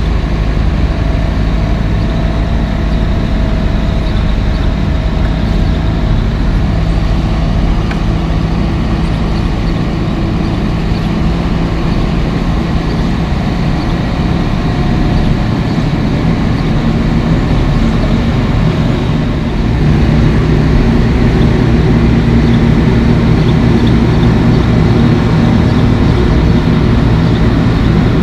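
Diesel engine of a Caterpillar 140H motor grader running steadily while the grader pulls its blade through fresh gravel, growing louder about two-thirds of the way through.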